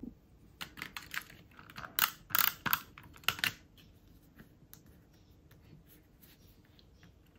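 Light clicks and taps of small paper cut-outs being handled and pressed down onto a cardstock card on a tabletop. There is a quick cluster of them in the first half, and then it goes faint.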